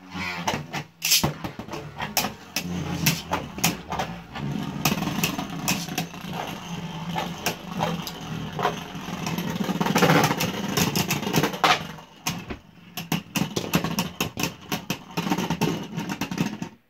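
Two Beyblade Burst spinning tops, Kolossal Fafnir and Odax, whirring in a plastic Speedstorm stadium, with rapid sharp clacks as they hit each other and the stadium. The sound stops abruptly near the end.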